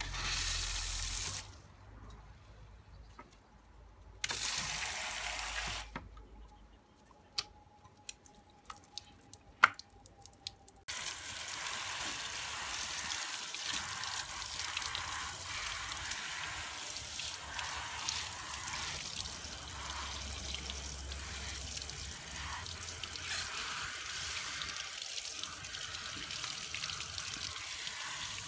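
Water from a handheld outdoor shower head spraying steadily onto a dog's coat from about eleven seconds in. Before that there are two short spurts of spray as the shower is turned on and off, with a few clicks and drips between them.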